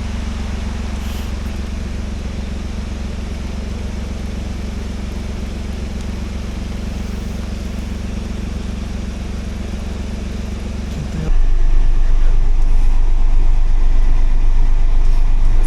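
Steady low rumble of a car's engine and road noise. About eleven seconds in it changes abruptly to a louder, deeper rumble.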